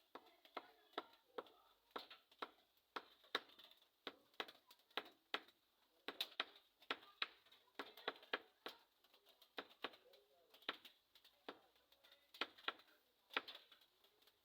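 Irregular light taps or clicks, two or three a second, each with a short bright edge, like small knocks on metal.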